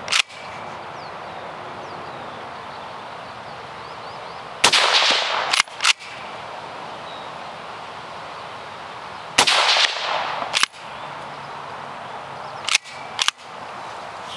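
Two suppressed shots from a Beretta BRX1 straight-pull rifle in 6.5 Creedmoor, about five seconds apart. Each shot is followed within a second by two sharp clicks as the bolt is pulled back and pushed forward. A few more clicks come near the start and near the end.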